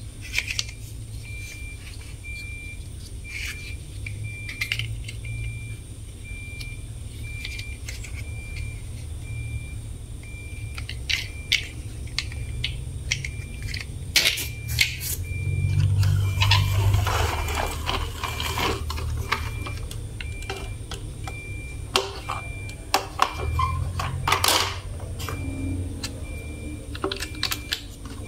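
Plastic toy trucks clicking and knocking as they are handled and set down, over a steady low hum. A faint high beep repeats at one pitch throughout, and a louder rushing noise rises for a few seconds about halfway through.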